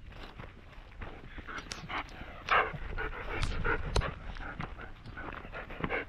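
Dog panting close by in short irregular puffs, with rustling and a couple of sharp knocks near the middle.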